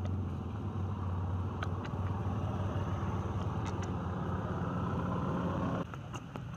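Steady low hum of an engine running, with a few faint clicks over it; the hum drops off abruptly near the end.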